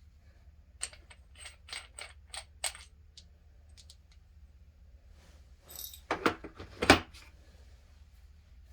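Small metal tool parts being handled: a run of about six light metallic clicks, then a brief rustle and a louder clatter of knocks about six to seven seconds in.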